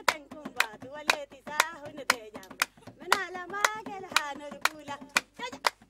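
Women clapping their hands in a steady beat, about two claps a second, while a woman's voice sings over it.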